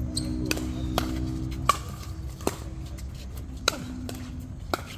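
Pickleball paddles striking the ball: a string of sharp, irregularly spaced pops, about six in a few seconds, the loudest a little under two seconds in.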